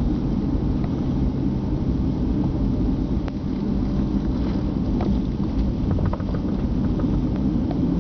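Steady low rumble inside a jet airliner's cabin as it taxis, with a few faint clicks about halfway through.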